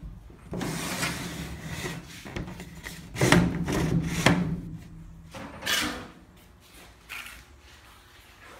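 A side window panel of a sheet-steel machine enclosure being pushed open by its knob, rubbing and scraping along the steel for about five seconds, with two sharp knocks about three and four seconds in and a shorter scrape a little later.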